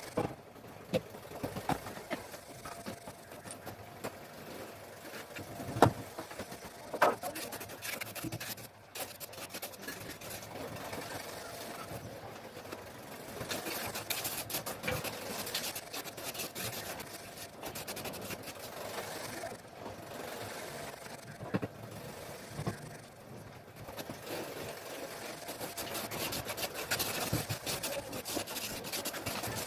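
Steel trowel scraping and rubbing over wet cement on a floor, with a couple of sharper knocks about six and seven seconds in.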